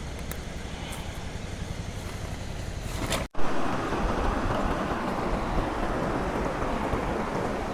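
Rushing river water with wind rumbling on the microphone. It cuts out abruptly a little over three seconds in, then the rush comes back louder.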